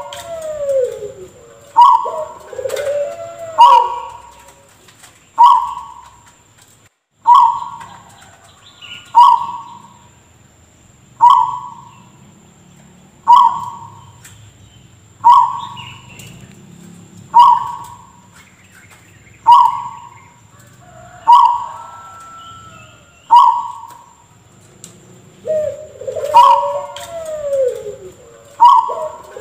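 Zebra dove (perkutut) calling with an odd, cough-like voice: a string of short single notes about every two seconds, with longer cooing phrases that glide up and down near the start and again near the end.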